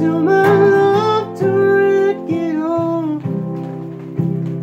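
Steel-string acoustic guitar strummed in slow chords, with a man's high voice holding long, bending notes without clear words over it for about the first three seconds; after that the guitar goes on alone, a strum about once a second.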